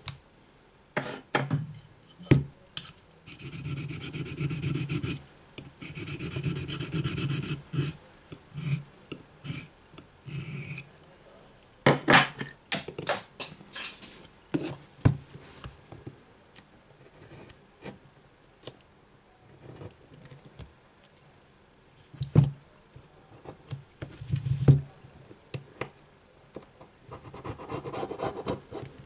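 Old double-sided adhesive tape and leftover glass being scraped off the frame rim of an iPad 2 with a hand tool. The rasping strokes come in bouts, two longer runs a few seconds in, with scattered clicks and taps between them.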